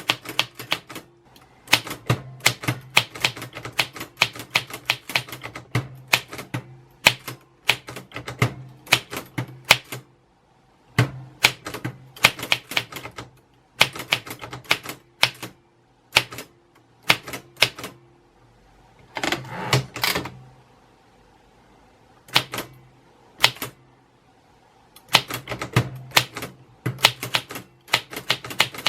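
Typewriter typing: runs of sharp key strikes with short pauses between them, and a longer, denser rattling stretch about two-thirds of the way through.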